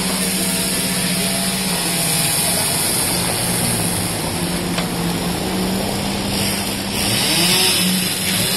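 Construction machinery engine running steadily during a concrete pour, a constant low hum.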